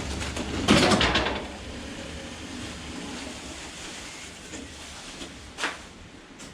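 Objects handled in a garage: a rattling clatter about a second in, and a single knock near the end, over a low steady hum.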